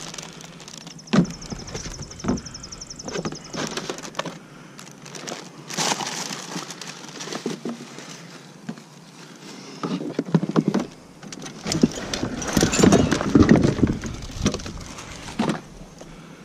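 Curbside junk being rummaged through and moved by hand: irregular knocks, clatter and rustling, busiest and loudest about thirteen seconds in.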